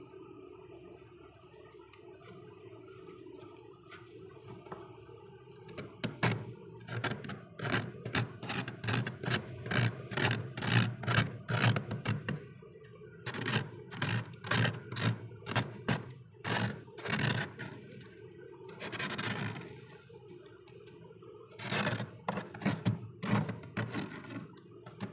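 Thick, soft freezer frost being scraped and crumbled by hand, giving runs of quick crunchy scrapes that start about six seconds in and come in several bursts, over a faint steady hum.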